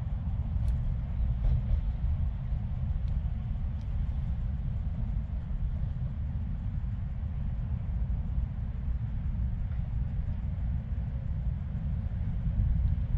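Wind buffeting the microphone: a steady low rumble that swells and dips.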